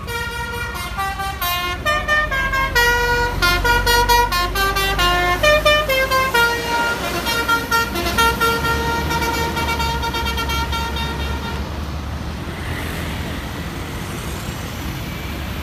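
Basuri musical horn on a passing intercity bus playing a quick tune of stepped notes, over the low rumble of the bus's diesel engine. The horn tune stops about twelve seconds in, leaving the engine sound slowly fading as the bus moves away.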